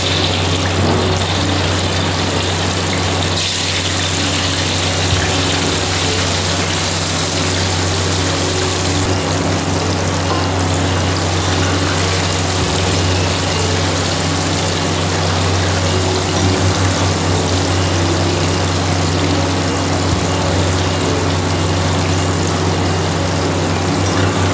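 Tofu and meatballs deep-frying in a wok of hot oil, a steady sizzle, over a loud steady low hum.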